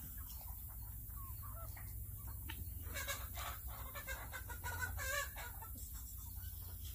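Chickens clucking in short calls, a louder run of clucks about three seconds in and again around five seconds.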